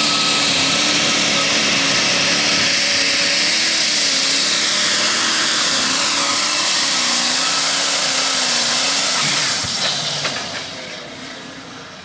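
Super Stock pulling tractor's engine running flat out under load, its pitch wavering up and down as it hauls the sled. About ten seconds in the engine comes off full power and the sound falls away sharply.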